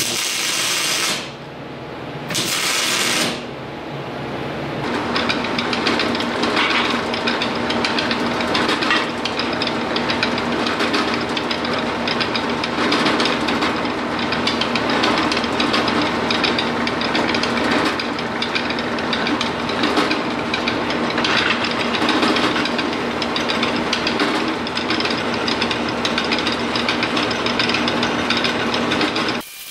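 Two short bursts of arc-welding crackle as the steel plate is tack-welded. Then a drill press runs with its bit cutting into the steel plate through a clamped ball bearing's bore, a continuous gritty chatter with a steady hum underneath that stops suddenly near the end.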